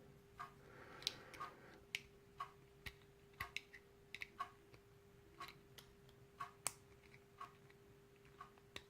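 Faint, irregular small metal clicks and taps, about two a second, from handling a lock and a plug follower while taking the lock apart. A faint steady hum runs underneath.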